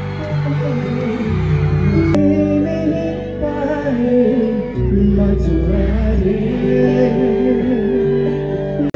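Live music played loud through a stage PA system: held chords that change every second or two, with a voice singing over them.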